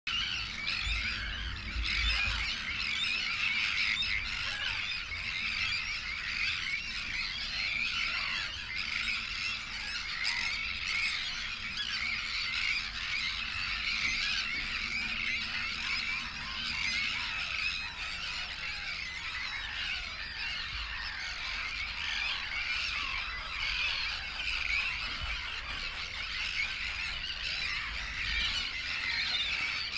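Dense, continuous chorus of many calling animals: a steady chatter of overlapping calls, with a low rumble underneath.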